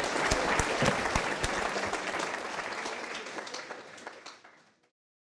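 Audience applauding: many hands clapping together, fading out near the end.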